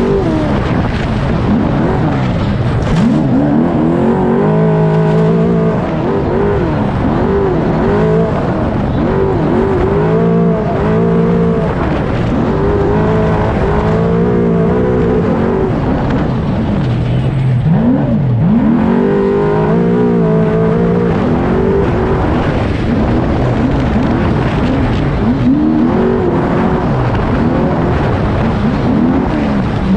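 Trophy truck race engine at speed on a dirt course, heard from on board: the revs climb and fall again and again as the throttle is worked through the turns, over a steady rush of wind and tyre noise.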